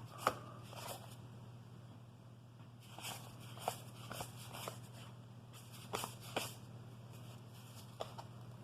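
Baseball cards and wax pack wrappers being handled: scattered soft clicks and short rustles as cards are flipped through, over a steady low hum.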